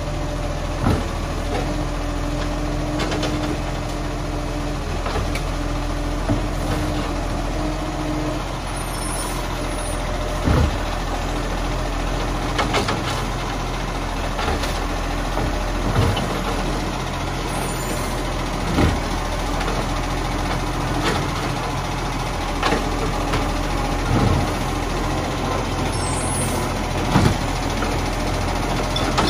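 Iveco side-loader garbage truck running steadily while its automated arm lifts and tips wheelie bins into the hopper. Sharp knocks sound every few seconds as the bins are grabbed, emptied and set back down, over the steady rumble of the diesel engine.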